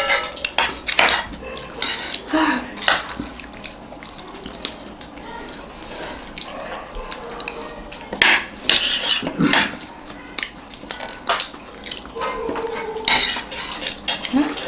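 Spoons clinking and scraping against plates at an irregular pace while people eat papadi chaat and samosas.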